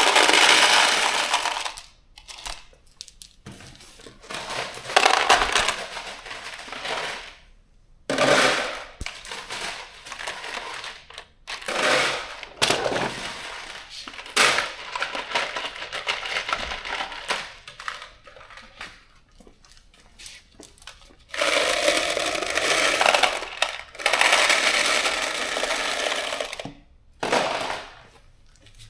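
Loose steel bolts rattling and clinking as handfuls are scooped and tipped into the compartments of a bolt kit, in repeated bursts lasting from under a second to several seconds.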